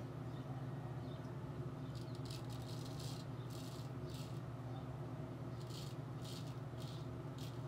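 Straight razor scraping through lather and stubble in short, crisp strokes, coming in two runs with a pause between them, over a steady low hum.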